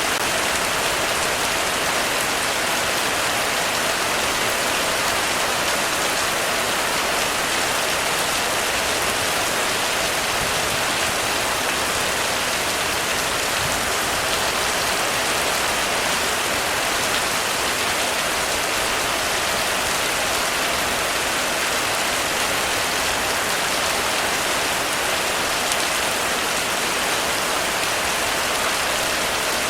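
Heavy rain falling on a roof, a steady, even hiss with no breaks.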